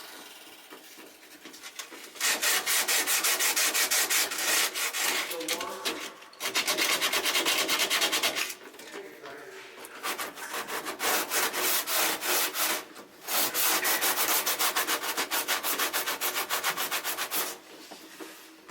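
Rapid back-and-forth scraping or rubbing strokes by hand, in four runs of two to four seconds with short pauses between.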